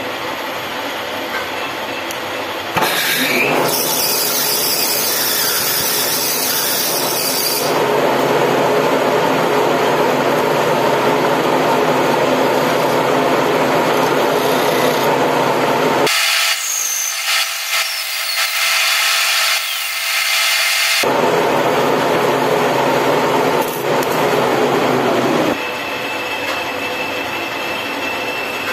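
Manual lathe running with a brass banjo bolt spinning in the chuck, and a hand file scraping against its freshly cut threads. The sound grows louder about three seconds in.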